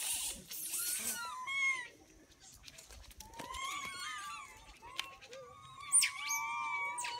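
Macaques calling: many short, arching squeaks and coos overlapping one another, with a few sharp high-pitched chirps about six seconds in. These are the troop's excited calls at the sight of a man holding peanuts. A brief rustle at the very start.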